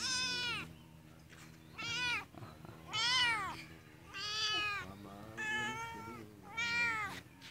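A cat meowing over and over: six meows about a second apart, each rising then falling in pitch.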